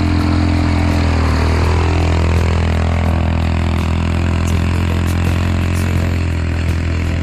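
A motor engine running steadily at a low, even speed, loud and close, with a deep hum.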